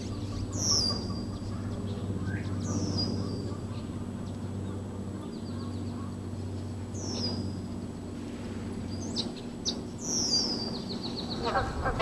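Wetland songbirds singing: high, quick down-slurred notes repeated every few seconds, some running into a rapid trill, over a low steady hum. Ducks break into quacking near the end.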